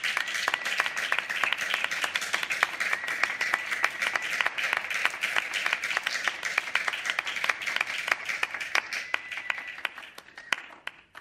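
Audience applauding, the dense clapping thinning to a few scattered claps and dying away near the end.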